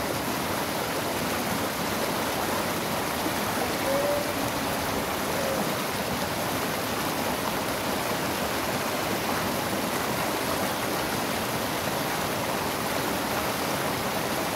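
Rapids of a small mountain river rushing over boulders: a steady rush of white water.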